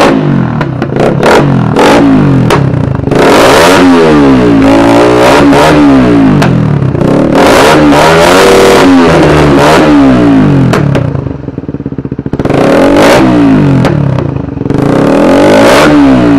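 Suzuki Raider 150 carb's four-stroke single-cylinder engine revved hard several times through an Apido aftermarket exhaust packed with steel wool and fitted with a chicken-pipe tip, the pitch climbing and falling back between blips. It eases toward idle about eleven seconds in before revving up again.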